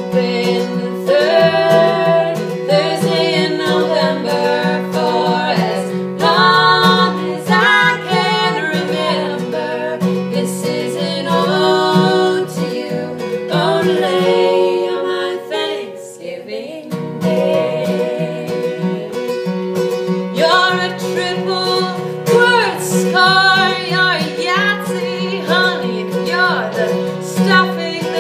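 Acoustic guitar strummed while two women sing a song together. The voices pause briefly about halfway through while the guitar plays on.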